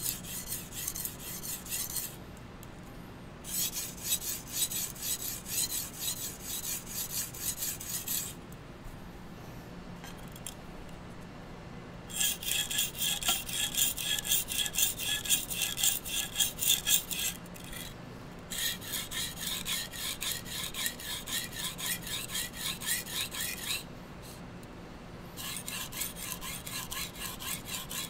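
A steel knife blade scraping back and forth across a whetstone, a rapid rasping stroke after stroke. The strokes come in sets of several seconds with short pauses of a second or so between them.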